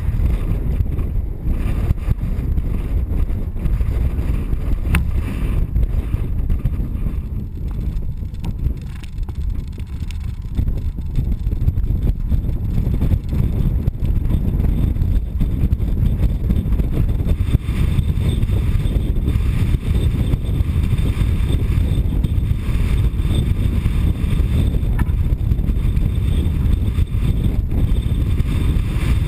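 Strong wind buffeting the microphone: a loud, low, rumbling noise that eases briefly about eight to eleven seconds in, then picks up again.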